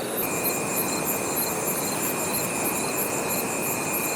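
Night insects, crickets by the sound's kind, chirping in fast, even, high-pitched pulses with a steady whine joining about a quarter-second in, over a constant rushing hiss.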